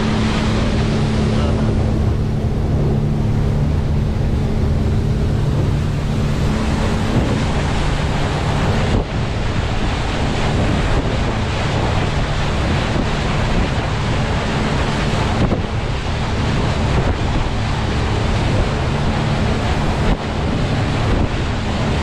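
A boat's engine running with a steady low hum, with wind buffeting the microphone throughout.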